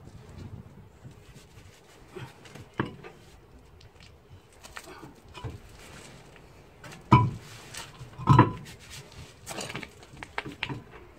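Scattered clinks and knocks of a tyred steel car wheel being handled and set onto its hub, with two louder clanks about seven and eight seconds in.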